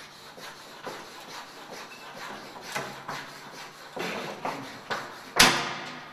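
White chalk scrawled hard and fast across a blackboard: a run of short rasping strokes, about two a second, with one much louder sharp knock near the end.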